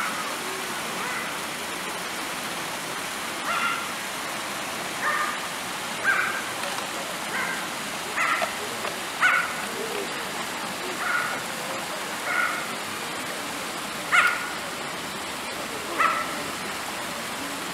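Cheetah chirping: short, high, bird-like yelps repeated about a dozen times, one every second or two.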